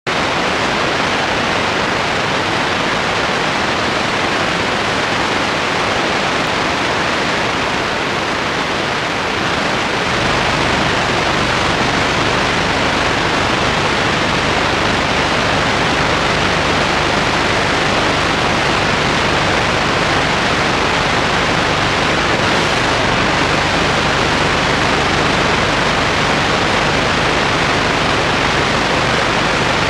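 Loud, steady hiss of static-like noise with no voice or music. A deeper rumble joins the hiss about ten seconds in.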